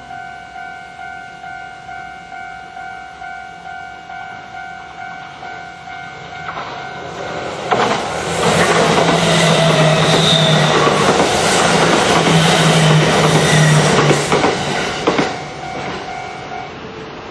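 Japanese level-crossing warning bell ringing in an even pulse, about twice a second, as an electric commuter train passes over the crossing from about 7.5 s to 15 s, loud, with the clack of the wheels over the rail joints. The bell stops near the end.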